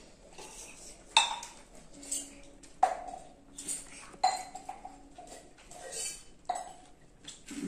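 Stainless steel plates and small steel bowls clinking as people eat by hand from them. There are several sharp, ringing clinks at irregular intervals, about one every second or so.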